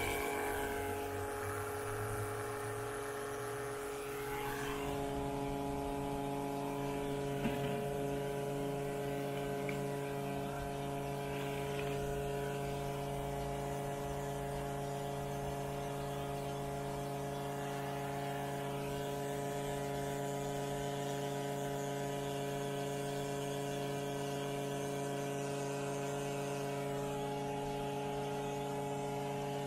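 Small electric oil-extraction pump running steadily with an even hum, sucking used engine oil out of the engine through a hose into a canister.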